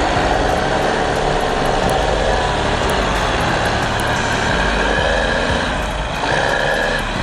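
A heavy vehicle's engine running hard under load, with a change in its pitch about six seconds in.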